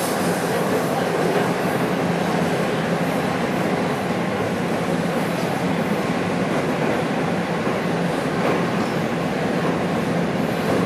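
Toronto subway train running at speed between stations, heard from inside the car: a steady, even rumble of wheels on rail and running gear, with a steady hum underneath.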